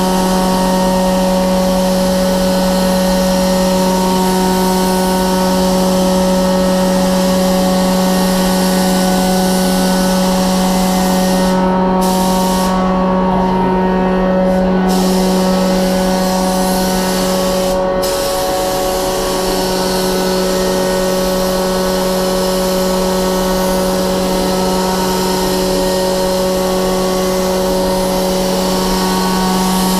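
Compressed-air paint spray gun hissing as it sprays a car body, over the steady hum of the paint booth's ventilation. The hiss stops for a few seconds about twelve seconds in, and again for a moment about six seconds later.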